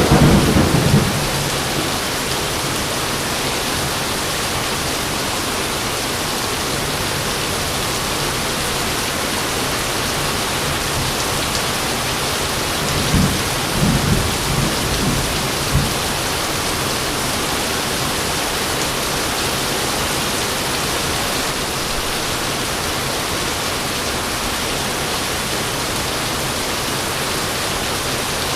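Steady rain pouring, with thunder: a rumble dies away in the first second, and another rolls through in several low rumbles about halfway through.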